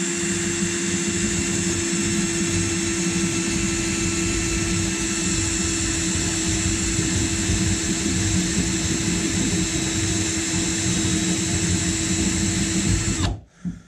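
Power drill on a low speed setting, driving a spot weld drill bit upward into a car's steel sill panel to drill out a spot weld. The motor runs with a steady whine and then stops abruptly near the end.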